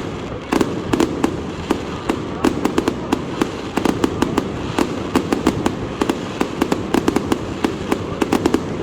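Aerial fireworks display: a rapid, unbroken run of bangs and crackles, several a second, from shells bursting overhead.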